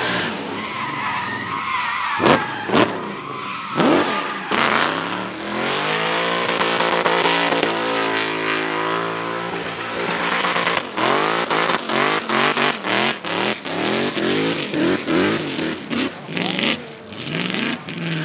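A Lexus drift car's engine revving hard as it spins its rear tyres in a smoky drift, with tyre squeal. Its revs sweep up and down midway, and a few sharp cracks come about two to four seconds in. Near the end the engine chops on and off about twice a second as the throttle is blipped or it bounces off the limiter.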